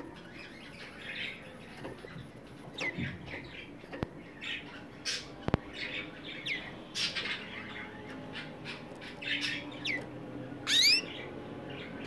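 Canaries in a cage giving short, scattered chirping calls, several falling in pitch, with a louder rising call just before the end. There are two sharp clicks in the middle.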